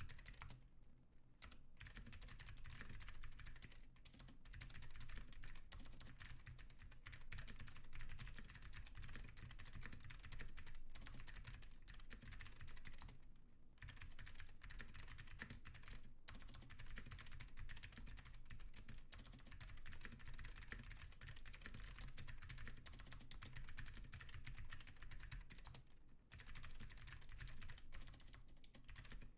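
Continuous fast typing on a custom Lin Montage WKL mechanical keyboard with clicky Alps blue switches, a stainless steel plate and Leading Edge keycaps, with brief pauses about a second in, about halfway through and near the end.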